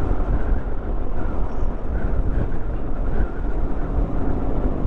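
Steady riding noise from a moving motorcycle: wind rushing over the microphone, mixed with engine and road noise.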